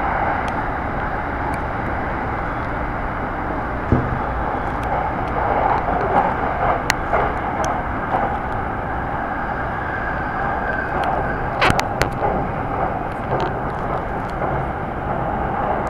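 Inside a moving electric commuter train: a steady running noise of wheels on rails, with a few sharp clicks and knocks along the way.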